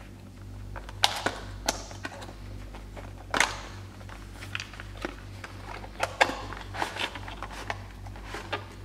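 Cardboard packaging box being opened by hand, its flap pulled open and a clear plastic blister tray slid out. A string of sharp clicks, scrapes and rustles, the loudest about three and a half seconds in, over a steady low hum.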